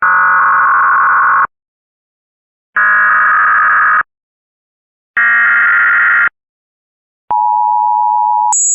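Emergency Alert System SAME header: three harsh, warbling digital data bursts of about a second each, separated by short silences. About seven seconds in, the steady two-tone EAS attention signal starts; near the end it jumps abruptly to a much higher, shrill pitch, an edited pitch shift.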